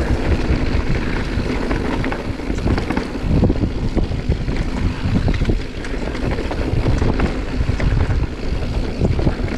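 Wind rumbling over the action camera's microphone as a Marin Mount Vision 8 mountain bike rolls down a dirt trail, with scattered clicks and knocks as the bike rattles over bumps, rocks and roots.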